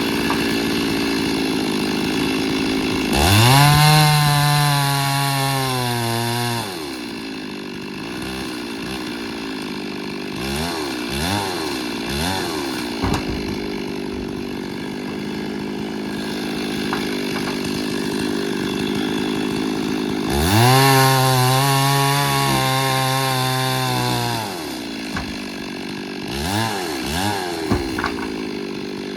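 Chainsaw idling, twice opened up to full throttle for three to four seconds at a time, about three seconds in and again about twenty seconds in, with several short blips of the throttle in between.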